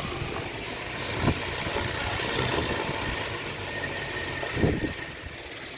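Gale-force wind gusting and roaring against the microphone, easing near the end, with a thin steady whine in the middle from a small homemade wind turbine spinning fast.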